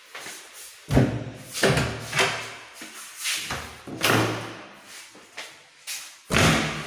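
Doors being pushed open and swinging shut, a series of about six thuds and knocks, each dying away after a moment.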